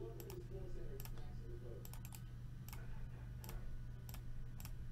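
Computer mouse and keyboard clicks: about ten sharp, faint clicks at irregular intervals.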